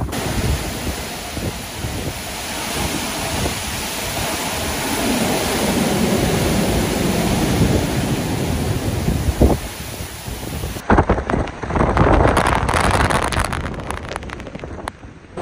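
Hurricane wind and heavy rain lashing a city street, the gusts swelling and easing, with wind buffeting the microphone in low rumbles.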